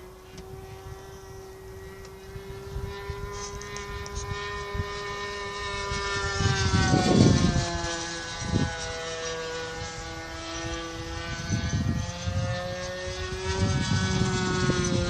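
Glow-fuel engine of a radio-controlled model airplane buzzing in flight, its pitch wavering slightly and growing louder about halfway through as the plane comes closer. Gusts of wind rumble on the microphone several times.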